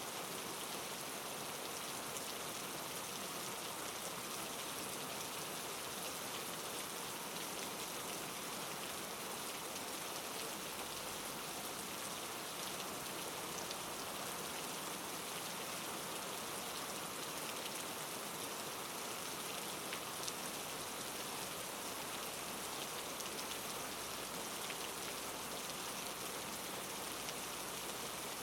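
Steady rain falling, a constant hiss of drops with fine scattered patters.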